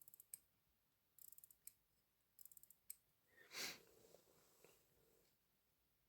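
Vintage Fortis hand-wind mechanical watch being wound at the crown: three short runs of faint, rapid ratchet clicks about a second apart. A single breath follows a little past halfway.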